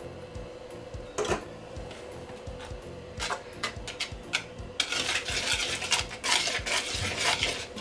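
Utensil stirring in a mixing bowl, working flour into beaten egg yolks and sugar for custard. A single clink comes about a second in, then scraping strokes that turn fast and continuous about five seconds in.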